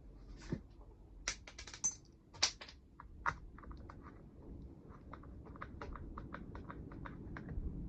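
Small hard clicks and taps of hand tools and plastic parts being handled while a chainsaw handle is reassembled. A few sharper clicks come in the first three seconds, then a run of lighter, evenly spaced clicks at about four or five a second, like a ratcheting driver turning a screw.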